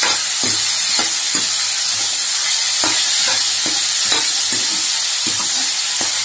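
Steel ladle stirring diced brinjal, ginger and tomato in a large kadai of hot groundnut oil: a steady sizzle broken by quick, irregular scrapes and clacks of the ladle against the pan, a few to the second, as the vegetables are sautéed.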